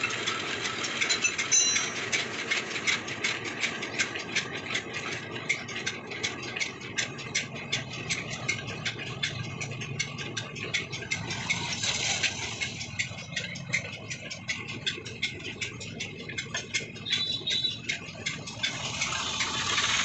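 An engine running steadily with a fast, even knocking rattle.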